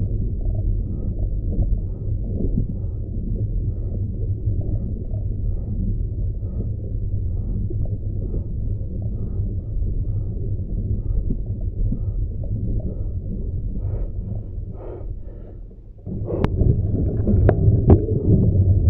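Muffled low rumble of wind and road noise on the microphone of a bicycle riding downhill, with faint regular ticks. It dips briefly near the end, then comes back louder with a few sharp clicks.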